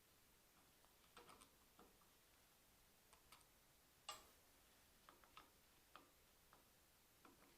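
Faint, scattered clicks and taps of small metal parts and tools as a small Tillotson carburetor is taken apart by hand, with one sharper click about four seconds in.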